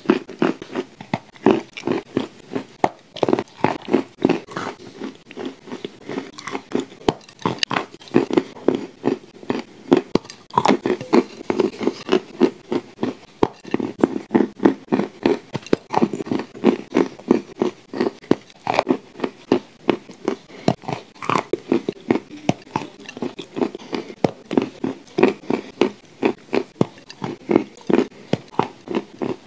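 Close-miked chewing and biting of shortbread cookies spread with clay paste: a steady run of quick mouth clicks and crunches, several a second.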